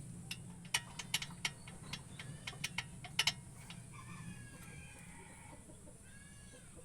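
A string of sharp, irregular clicks and knocks over the first few seconds, followed by faint high chirping calls.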